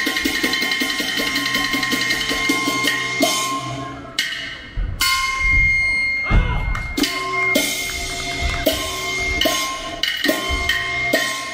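Chinese opera percussion accompanying a Qin opera martial scene. A fast, even drum roll breaks off about four seconds in; after a short pause come separate strikes roughly once a second over a ringing metallic tone.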